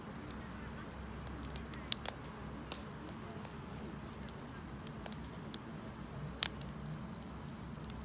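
Wood campfire burning with scattered sharp crackles and pops. A couple come about two seconds in and the loudest about six and a half seconds in, over a steady low rumble.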